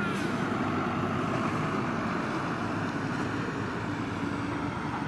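Heavy road vehicle passing close by: steady engine and tyre noise. A horn note dies away right at the start.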